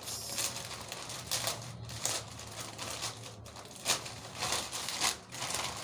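Packaging of a skin care kit being handled: scattered rustles and small knocks, with no steady sound.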